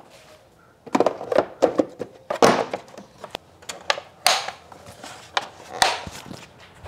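Irregular clicks and knocks of plastic parts being handled under the hood: an air filter housing and its clips being worked on.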